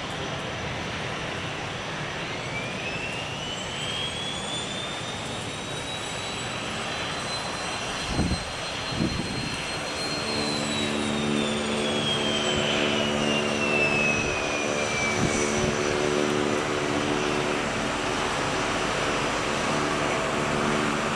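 Airbus A330-200 airliner taxiing, its jet engines giving a steady rumble with a high whine that climbs for several seconds and then slides back down. A steady low hum joins about halfway, with two low thumps just before it.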